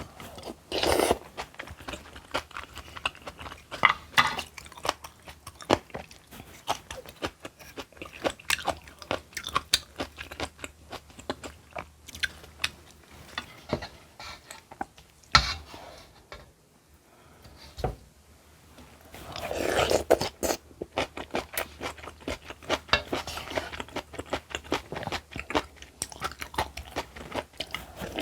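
Close-miked eating: repeated crunchy bites and chewing, in irregular clusters, with a short lull about two-thirds of the way through.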